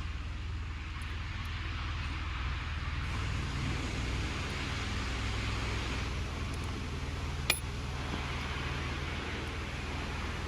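Steady low hum of workshop background, with one sharp click about seven and a half seconds in as a fuel injector is pressed into its seat in the cylinder head.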